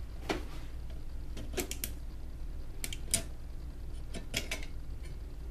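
Scattered clicks and light knocks from a home theater PC case being handled and turned over, coming in small clusters, over a steady low hum.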